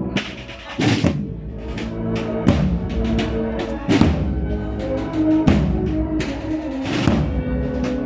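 A large band of more than a hundred members playing a slow march: sustained chords with a heavy drum stroke about every one and a half seconds.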